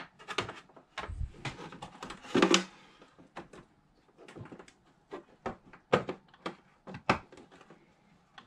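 Small plastic battery-monitor display and its cable handled and pushed against a plastic instrument panel: scattered clicks, taps and knocks, the loudest a knock about two and a half seconds in.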